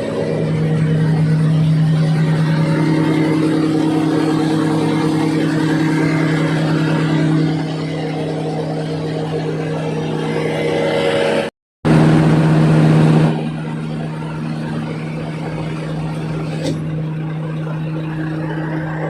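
Large diesel engine of a mining excavator running with a steady low hum, its level easing down partway through. The sound cuts out completely for a moment about halfway, then resumes.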